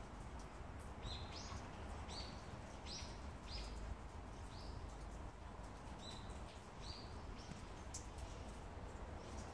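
A small bird chirping: about eight short, high, rising notes spread over several seconds. Underneath are a steady low rumble and faint clicks of a cat chewing food from a bowl.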